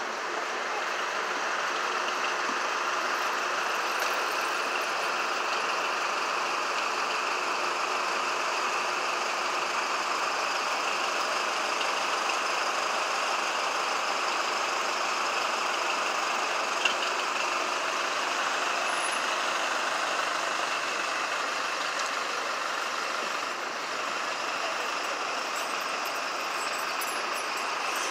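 Steady hum of busy city-street traffic, cars, vans and buses running past, with one brief click partway through.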